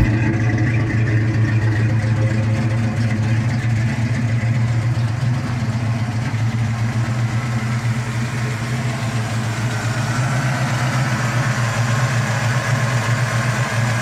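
Carbureted Ford 302 (5.0 L) small-block V8 in a Fox-body Mustang idling steadily, fed by a Holley four-barrel carburetor.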